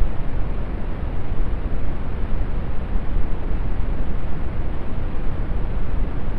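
Brown noise: a steady, even rumbling hiss, heaviest in the bass and fading toward the treble, unchanging throughout.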